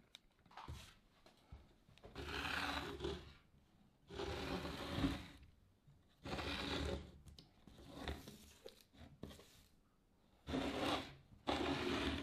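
Repeated rubbing and scraping of parts being handled on a wooden workbench: about seven bursts of roughly a second each, with short quiet gaps between them. The engine is not running.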